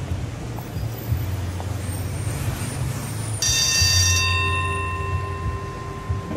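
Road traffic: a steady low engine rumble like a heavy vehicle idling. About three and a half seconds in, a sudden ringing tone starts and slowly fades, its higher overtones dying first.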